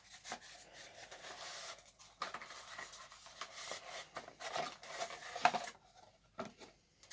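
A model locomotive box and its packaging being handled and opened: irregular rubbing and scraping with a few sharp clicks, dying away about six seconds in.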